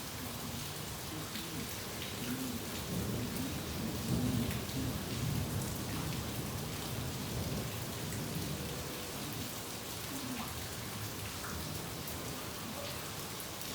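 Steady rain falling, with a low rumble of thunder that swells about three seconds in and fades out a few seconds later.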